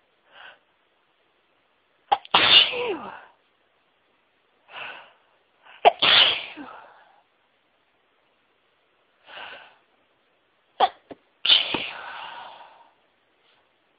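A person sneezing three times, each loud sneeze preceded by a short breath in, the release of a long-teased sneeze build-up.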